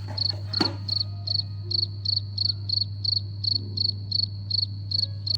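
Cricket chirping steadily, about three high chirps a second: the stock crickets sound effect for an awkward silence after a question goes unanswered. A steady low hum lies underneath.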